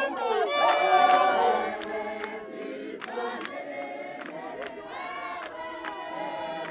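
A group of voices singing together, louder in the first two seconds and then softer, with regular sharp claps keeping the beat.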